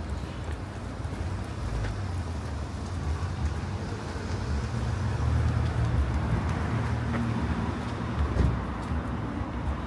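Street traffic: a vehicle's low engine and tyre rumble that builds up about halfway through, with a short knock near the end.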